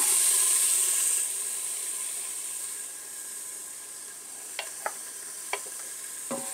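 Chopped onions and jalapeños dropped into hot olive oil in an Instant Pot's stainless inner pot, sizzling loudly at once and dying down over a few seconds to a gentler sizzle. Toward the end a few sharp clicks as a wooden spoon knocks the last pieces out of a glass bowl.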